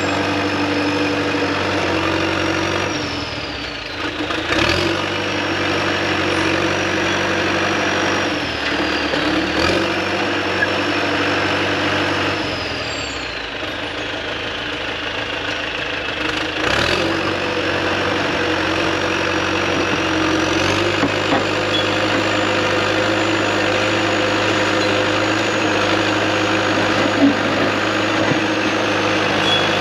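Heavy diesel engine running, its speed dropping and rising again several times, with a high whine above it that follows the engine speed.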